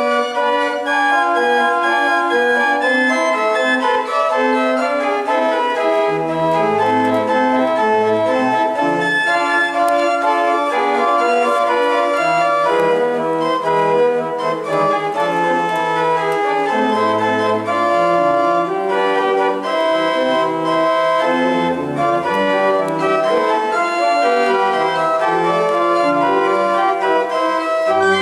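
Organ played: full sustained chords that shift from one to the next, with low pedal notes coming in and out from about six seconds in.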